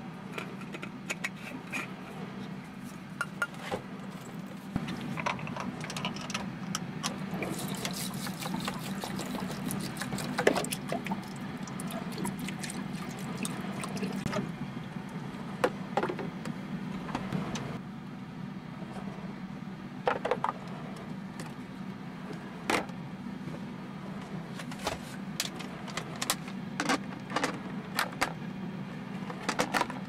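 An electric lunch box being filled and packed: sharp clicks and knocks of stainless steel containers and a plastic lid being set into place, with a stretch of pouring or splashing water about 8 to 14 seconds in. A steady low hum runs underneath, and a run of clicks near the end as the lid and latches are closed.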